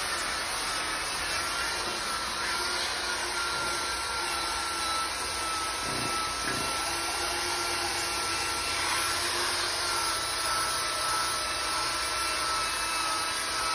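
Corded electric drill spinning a polycarbide abrasive disc pressed against a steel griddle top, grinding rust down to bare metal: a steady scouring noise with a thin, even motor whine.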